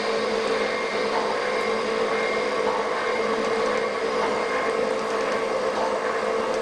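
Klopp 425 metal shaper running through a cutting pass on the flat of a Wilton bullet vise: a steady mechanical hum with a held mid-pitched tone.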